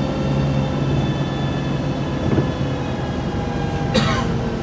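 Interior of a MAZ 203 low-floor city bus underway: engine and drivetrain hum with a steady whine that sinks slightly in pitch, and one sharp knock about four seconds in.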